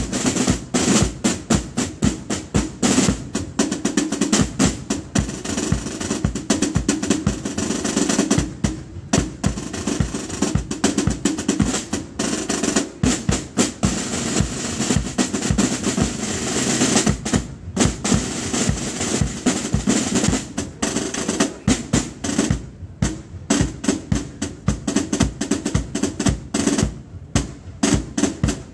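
A corps of drums playing side drums together: fast, crisp snare strikes and rolls in a drill rhythm, with a few short breaks between phrases.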